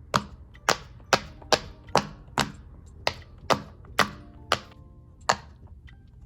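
Silicone pop-it fidget toy being pressed, its bubbles popping one after another as sharp clicks, about a dozen at roughly two a second. Faint background music underneath.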